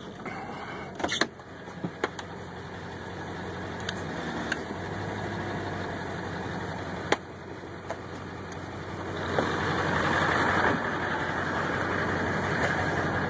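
Tow truck engine idling steadily, with a few sharp clicks and knocks from the cab. From about nine seconds in, a louder even rushing noise comes up over the idle.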